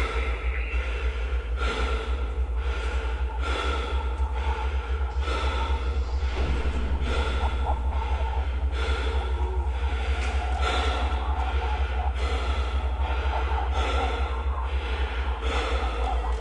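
A person breathing heavily and fast, about one breath a second, over a steady low drone.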